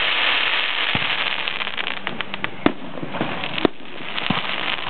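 Aerial fireworks bursting: a dense crackling hiss of a glittering shell over the first two seconds, then scattered pops and two sharp bangs about a second apart past the middle.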